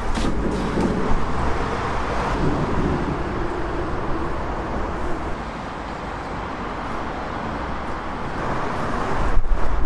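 Steady road-traffic noise, a continuous rushing of tyres and engines that eases a little midway and swells again near the end as a vehicle passes.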